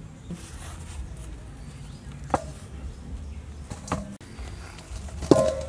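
Sweet potatoes being set down into a stainless steel bowl: three knocks about a second and a half apart, the last one the loudest, with a short metallic ring.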